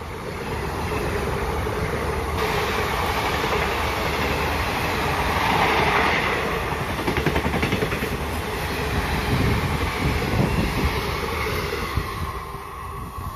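Indian Railways ICF passenger coaches running past at speed: a steady rumble with the wheels clattering rhythmically over the rail joints. The noise drops away near the end as the last coach goes by.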